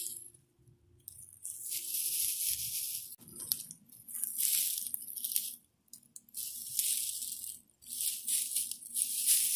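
Dry grass stalks rustling and crackling as hands push through and part a clump of dry grass. The rustling comes in irregular bursts of a second or two, with short pauses between them.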